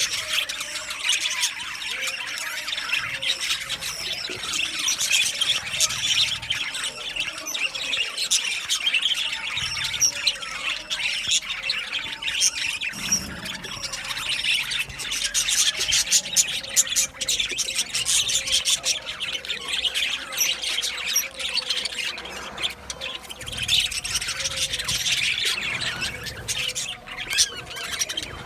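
A flock of budgerigars chattering, warbling and squawking continuously, many birds calling over one another.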